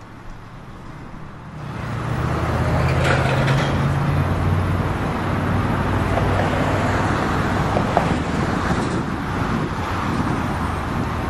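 Road traffic: a motor vehicle's engine grows louder about two seconds in, then keeps running steadily with road noise.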